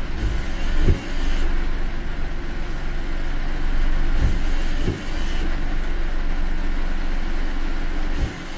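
Steady road and rain noise inside a car driving on wet roads in heavy typhoon rain. Low thuds come in pairs, about one pair every three and a half seconds.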